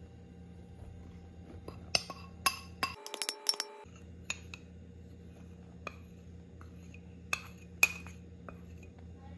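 Clinks and taps of a small ceramic bowl knocking against a stainless steel mixing bowl as flour is tipped out, a quick cluster about two to four seconds in with a short ring from the steel, then a few scattered taps.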